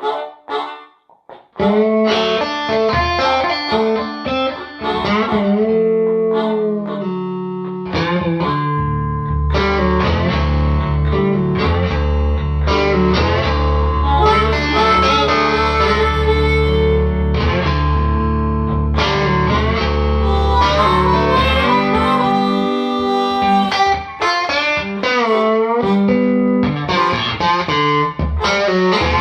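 Blues music led by guitar, starting from silence: a few sparse opening notes, then the full band comes in at about two seconds, with a deep bass line joining at about eight seconds.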